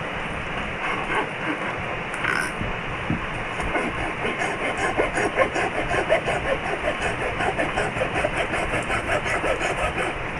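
Hand saw cutting through wood in steady back-and-forth strokes, which become more regular and stronger about four seconds in.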